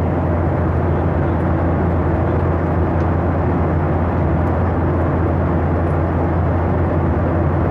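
Steady cabin noise inside a Boeing 737-800 in cruise: the constant rush of airflow and engines over a deep, even hum, unchanging throughout.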